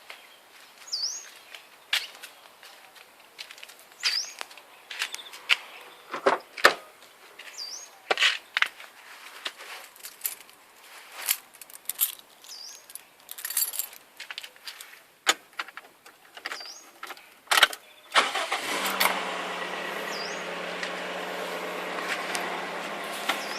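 Scattered knocks and clicks, with a bird giving a short rising chirp every few seconds. About 18 seconds in, a Toyota 4A-GE 20-valve Silvertop inline-four starts and settles into a steady idle. The owner reports a constant clicking from this engine whose cause he has not found.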